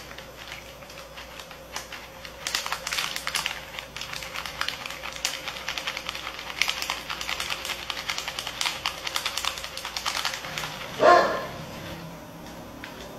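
Whole cloves tipped from a plastic packet into a plastic bottle: rapid small ticks and packet crinkling in bursts. Near the end a dog barks once, the loudest sound.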